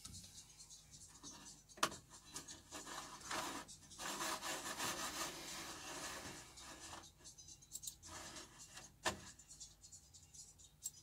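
Faint rubbing and rustling handling noise at a studio table, strongest midway, with two sharp clicks, one about two seconds in and one about nine seconds in.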